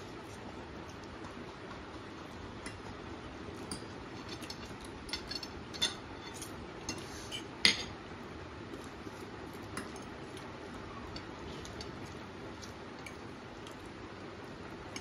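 Metal forks clinking and scraping against plates as noodles are eaten, in scattered light clicks with one louder clink about eight seconds in, thinning out toward the end.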